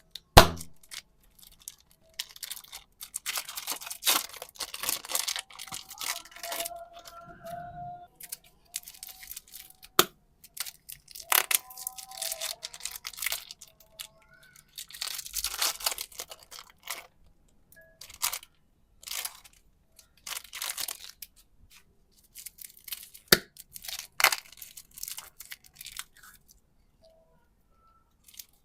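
Super clay and its packaging being handled and opened up close: irregular crinkly tearing and crunching, with a few sharp clicks and faint squeaks.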